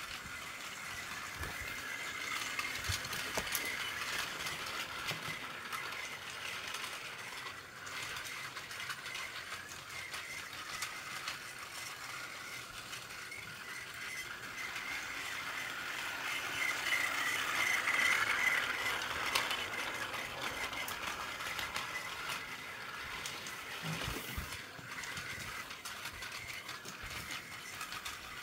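Plarail battery-powered toy train, a long string of coupled cars, running on blue plastic track: a steady high motor whine with the rattle of wheels and track joints. It swells louder a little past the middle and falls away again.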